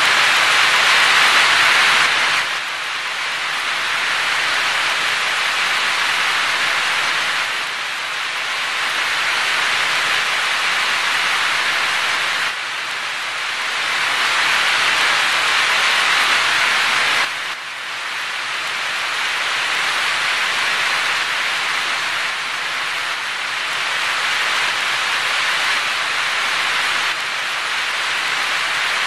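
Heavy rain pouring and splashing onto wet ground, a steady dense hiss of drops. The level drops abruptly a couple of times: about two seconds in, and twice more near the middle.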